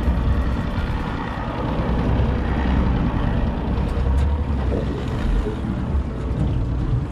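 Boat engine running with a steady low rumble, under a constant rushing noise.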